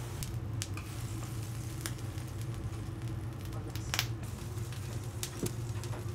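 Kitchen ambience at a dorayaki griddle: a steady low hum with scattered light clicks and taps, the sharpest about four seconds in.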